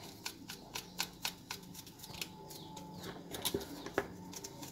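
A small brush scrubbing a plastic comb in soapy water, its bristles flicking across the comb's teeth in quick, irregular clicks.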